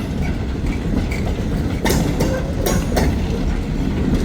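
Freight train cars rolling past: a steady low rumble of wheels on rail, with sharp clacks as the wheels cross rail joints, several of them about two to three seconds in.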